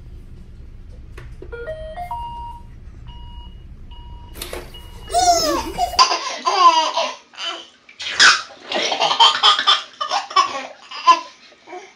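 A robot vacuum plays a rising run of electronic notes followed by a few steady beeps, and a baby squeals at it. Then a baby laughs hard in repeated bursts of giggles.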